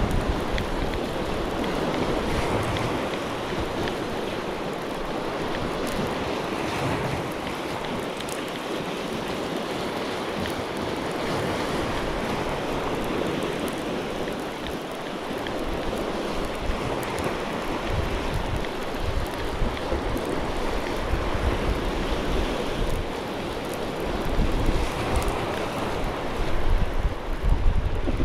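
Small sea waves breaking and washing over a rocky shore, with wind buffeting the microphone in gusts that grow stronger near the end.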